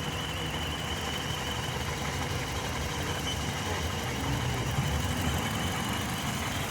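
2005 Hyundai Matrix engine idling steadily while it is diagnosed for a cylinder 2 misfire (code P0302), running rich. A faint steady high-pitched whine sits over the engine sound.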